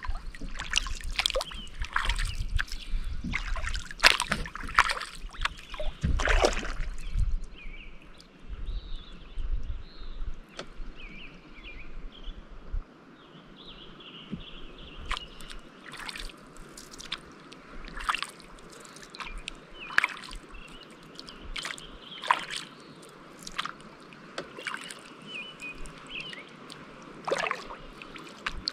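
Kayak paddle working calm lake water: blades dipping, splashing and dripping in quick succession over the first several seconds, then single strokes about every two seconds.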